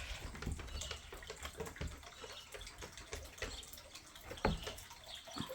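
Faint trickling and splashing of water from a garden fountain, with one sharper click about four and a half seconds in.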